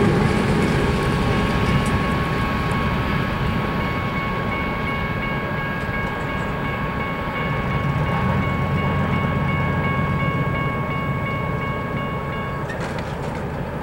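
Level-crossing warning bell ringing over the rumble of an empty coal train rolling away. The bell stops about a second before the end as the crossing clears.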